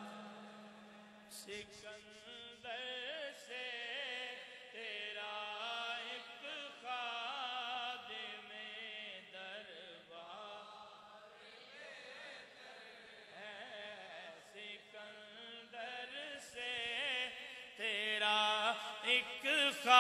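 Soft background chanting by a group of voices sustaining the naat's melody between the lead reciter's lines, growing louder near the end.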